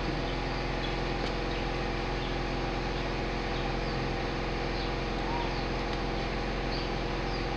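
A steady mechanical hum, like a motor or engine running, with faint short high chirps now and then.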